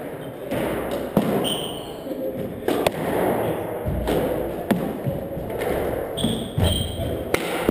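Squash rally: the ball cracks sharply off rackets and walls every second or two, with short high squeaks of court shoes on the hardwood floor a little after the first hit and twice near the end.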